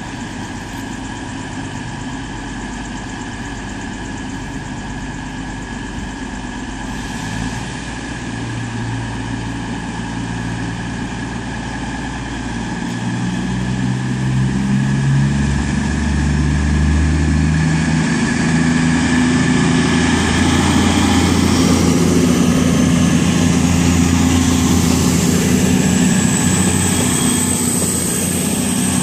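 Underfloor diesel engines of a nine-coach Class 221 and Class 220 Voyager diesel-electric train, idling and then opening up as the train departs. The engine note gets louder about halfway through, and a rising whine builds near the end as the train pulls away.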